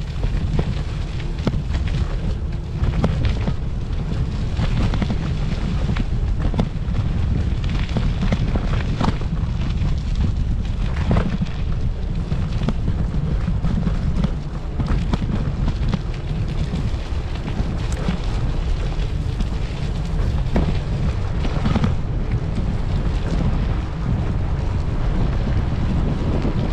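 Rumble of wind buffeting the microphone while riding a Lime electric scooter over a rough dirt and gravel track, with scattered clicks and rattles from the wheels going over stones and bumps.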